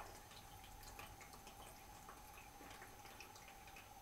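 Faint irregular dripping and trickling of water from an undone radiator valve into a bucket, the pressurised flow dying away.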